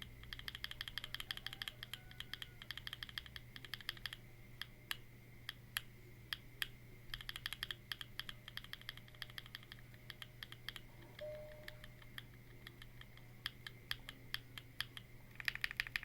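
Mechanical keyboard typed on Space Studio Loopy linear switches (factory-lubed, POM top and PA66 bottom housings, 35 gf springs). Fast runs of keystrokes break off into pauses, with a stretch of single, spaced key presses about four to seven seconds in.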